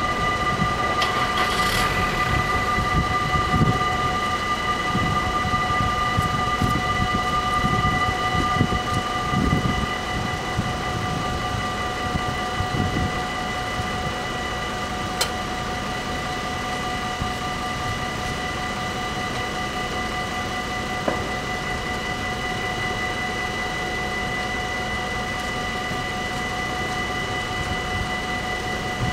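Dutch AHOB level crossing bells ringing without a break while the crossing is closed, a steady ringing of several tones, warning that a train is coming. Low rumbling underneath is strongest in the first ten seconds.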